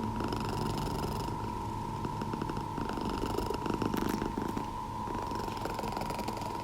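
A calico Scottish cat purring steadily while being brushed, with a few short brush strokes through the fur about a second in and again midway.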